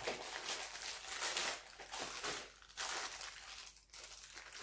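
Plastic packaging crinkling and rustling in several short bursts as small accessories are unpacked and handled.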